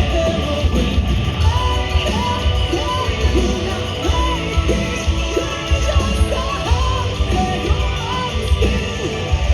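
Live hard rock band playing loud between sung lines: heavy drums and distorted guitars, with a lead line of short rising notes repeating about once a second.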